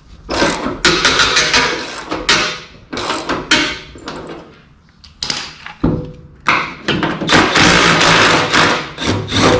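Scraping and clunking of a steel fuel tank being worked down from under a Nissan GU Patrol, with several sharp knocks and long rough scrapes. The tank is heavy and still part full of fuel.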